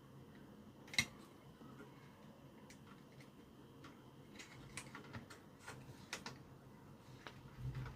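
Irregular light clicks and taps of small plastic and metal parts being handled, with one sharper click about a second in, a run of smaller clicks in the middle, and a soft low thump near the end.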